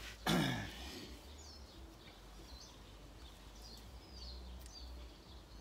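Quiet outdoor background with faint bird chirps now and then over a low steady rumble. Just after the start there is a short vocal sound that falls in pitch.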